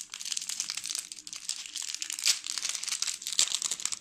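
A spoon stirring foamy glue-and-shaving-cream slime base in a bowl: a dense, continuous fine crackling and squishing.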